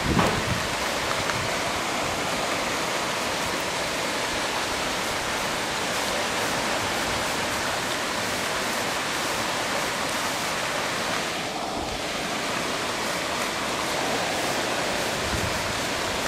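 Heavy hurricane rain pouring down, a dense, steady hiss. A gust buffets the microphone at the very start.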